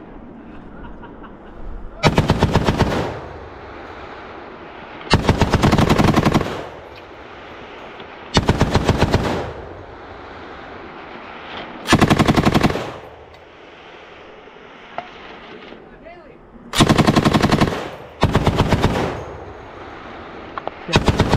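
M240B belt-fed machine gun firing short bursts of about a second each, six of them a few seconds apart, with another starting at the very end.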